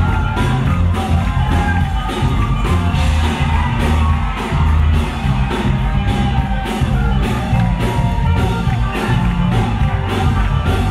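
Live band music with a steady beat and heavy bass, with shouts from a crowd.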